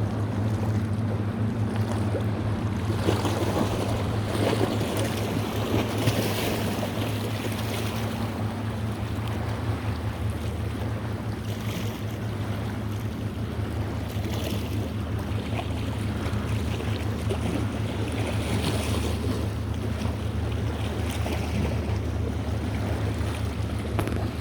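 A boat's engine drones steadily under way, with water rushing and wind buffeting the microphone.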